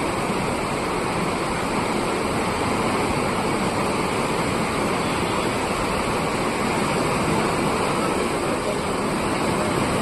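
Swollen floodwater rushing fast after heavy rain, a steady, unbroken rush of water.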